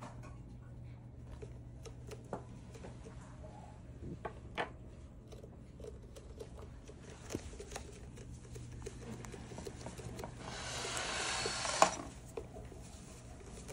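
Scattered light clicks and scratches of a hamster's claws on a clear plastic weighing bowl set on a kitchen scale, over a low steady hum. About ten seconds in, a louder rustle lasts a couple of seconds and ends in a sharp click.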